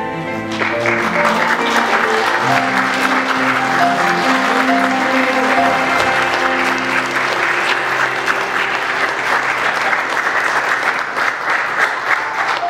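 A crowd applauding, starting about half a second in and going on steadily, over instrumental music with sustained notes.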